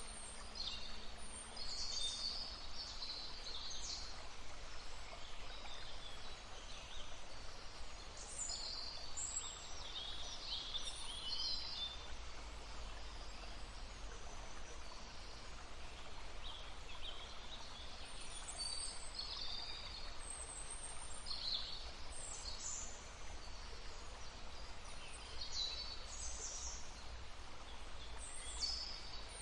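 Songbirds singing in several bouts of quick, high-pitched chirping phrases, over the steady rush of a babbling stream.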